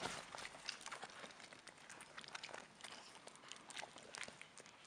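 A porcupine gnawing on an apple core: faint, irregular crunching clicks, several a second.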